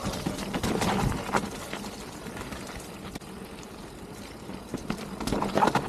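Mountain bike rolling over rough, wet trail. It clatters and knocks over the first second or so and again near the end, with quieter tyre noise between.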